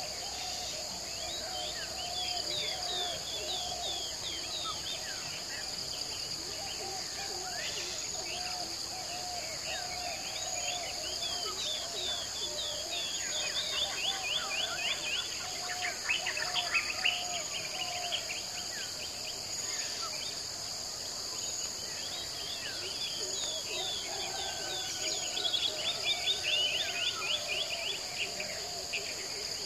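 Outdoor nature ambience: birds chirping and singing over a steady, high chirring of insects such as crickets. The birdsong grows busier and louder in the middle and again near the end.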